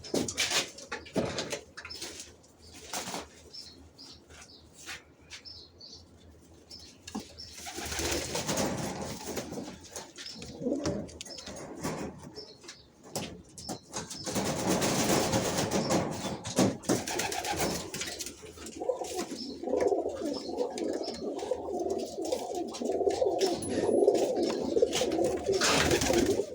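Domestic pigeons cooing in a loft, the cooing growing stronger in the second half, with scattered knocks and clicks and bursts of rustling.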